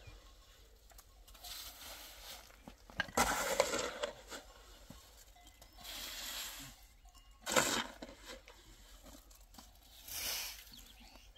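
Shovel scraping and scooping wet cement mortar in a metal wheelbarrow, several separate strokes a few seconds apart.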